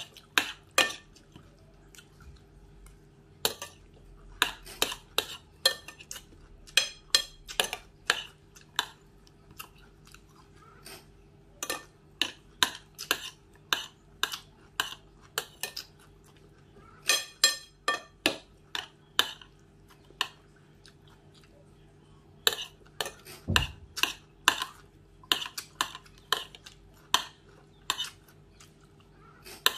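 A metal spoon repeatedly clinks and scrapes against a glass salad bowl, mixed with crunchy chewing of raw diced cucumber and carrot. The sounds come as bursts of sharp clicks, with quieter gaps between mouthfuls.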